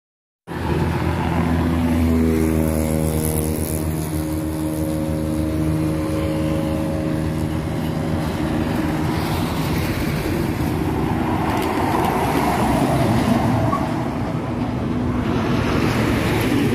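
Jeepney's diesel engine running steadily as it drives toward and past on a concrete highway. Its low drone gives way after about ten seconds to a broader rush of tyre and road noise.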